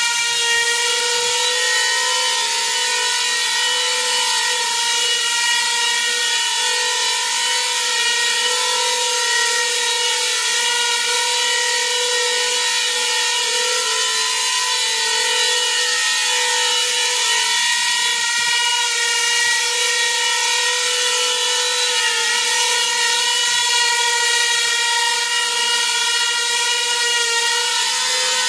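Small coaxial copter's stacked rotors and electric motors whining steadily in hover, the pitch holding nearly constant with only slight wavering.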